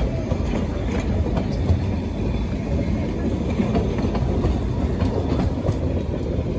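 Narrow-gauge railway carriages rolling past: a steady low rumble of wheels on the track with a few faint clicks.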